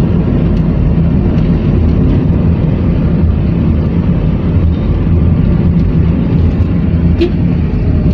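Car running along a paved road, heard from inside the cabin: a steady low drone of engine and tyre noise.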